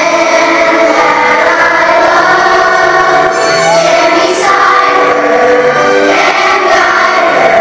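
A large children's choir singing, holding sustained notes.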